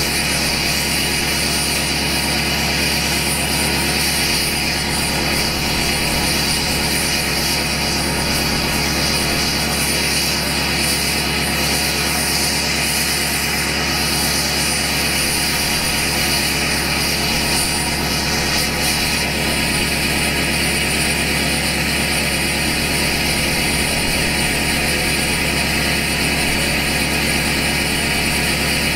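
2012 LML Duramax 6.6-litre V8 turbodiesel idling through a 5-inch straight pipe into an 8-inch axle-dump tip, with no muffler. The drone holds a steady, even pitch with no revs.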